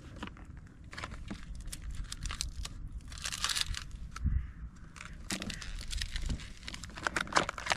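Hands handling small fishing tackle close to the microphone: plastic packaging crinkling and rustling, with a run of small, irregular clicks as split rings and swivels are fitted.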